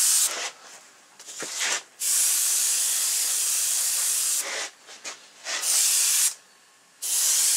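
Airbrush spraying white paint in bursts of hiss that start and stop, the longest about two and a half seconds, as a coat of white goes on.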